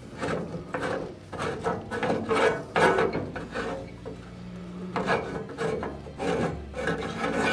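Steel auger of a Traeger pellet grill being twisted and drawn by hand out of its auger tube, scraping and grinding through compacted wood-pellet dust, with loose pellets rattling onto the metal pan. The sound comes in a run of rough scraping strokes that ease off briefly about four seconds in. It is the sound of an auger jam being cleared: pellets swollen by moisture have packed into dust and locked the auger.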